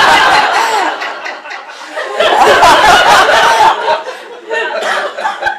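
A room full of people laughing loudly, in two waves: one at the start and a second about two seconds in, dying down into scattered chuckles near the end.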